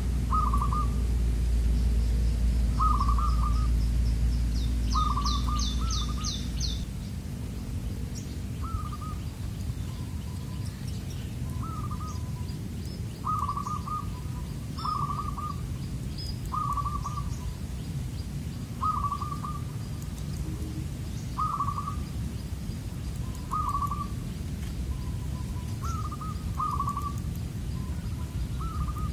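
Zebra doves (perkutut) cooing: short, slightly falling call notes repeated every second or two. A fast burst of high chirps from another small bird comes about five seconds in, and a low rumble runs under the first seven seconds.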